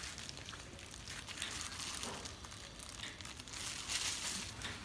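Faint rustling and crinkling of thin plastic disposable gloves on hands that hold a dog still during an injection, with scattered small crackles.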